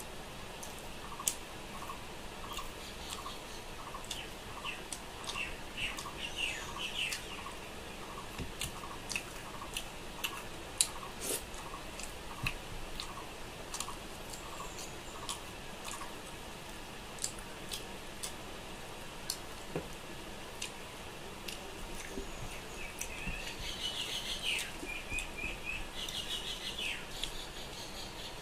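Eating rice and fish curry by hand from a steel plate: chewing and mouth clicks, with fingers working the rice. Birds chirp in short bursts in the background, and a short note repeats about twice a second through the first half.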